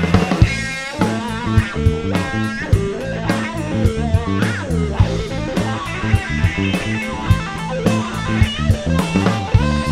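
Live rock band playing an instrumental break: guitar lines over a steady drum-kit beat.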